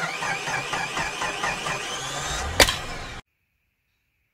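Logo intro sound effect: a dense mechanical noise with a warbling whine, ending in one sharp crack about two and a half seconds in, then cutting off suddenly.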